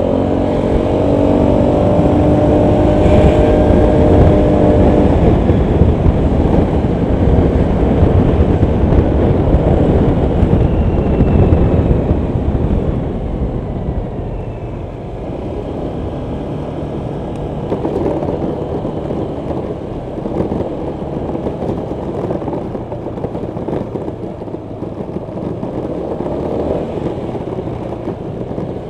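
Honda PCX 125 scooter's single-cylinder engine running under way, with wind and road rumble. It is loud for the first dozen seconds, then the engine eases off about halfway through and stays lower.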